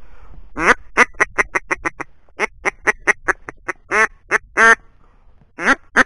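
Duck quacking: a long, rapid run of loud, short quacks, two drawn out near the middle, then after a brief pause another quick run near the end.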